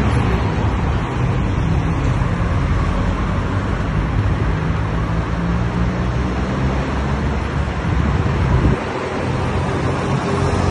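Road traffic on a city street: cars running and passing, a steady rush of engine and tyre noise with a low hum that dips briefly about nine seconds in.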